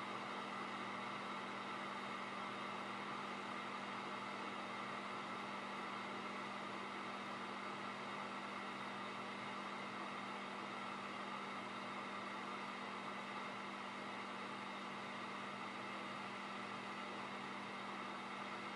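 Hot air rework station blowing steadily at 40% airflow onto a phone's CPU to melt its solder for removal: an even hiss with a steady low hum.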